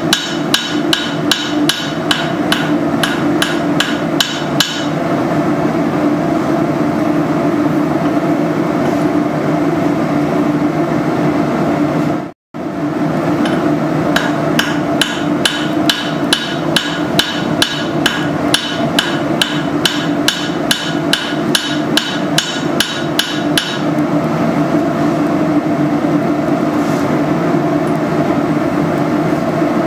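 Blacksmith's hand hammer forging hot steel held in tongs on an anvil: steady blows about three a second. Some stretches ring brightly off the anvil, others are duller, with a short break near the middle.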